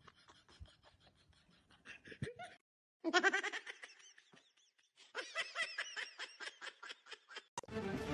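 Two bursts of rapid, pulsing laughter, the first about three seconds in and the second about five seconds in. Music starts just before the end.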